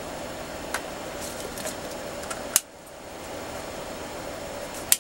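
Multimeter test probes tapping and scraping against a charger's metal output clips: a few light clicks, with sharper ones about halfway and at the very end, over a steady background hiss.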